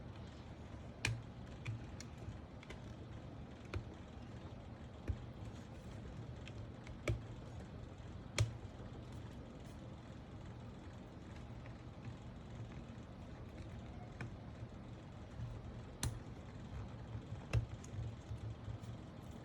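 Irregular sharp plastic clicks and small taps of keyboard parts being handled, typical of stabilizers being fitted and snapped into a keyboard plate, over a steady low hum.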